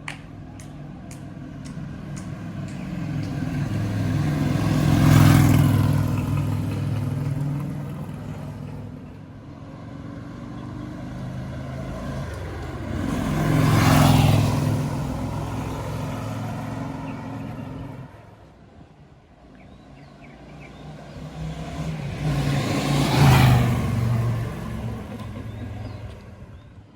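V-twin cruiser motorcycles (a Yamaha Bolt 950 and a Kawasaki Vulcan VN800) riding past one at a time: three pass-bys about nine seconds apart, each engine note building to a peak as it goes by and then fading away.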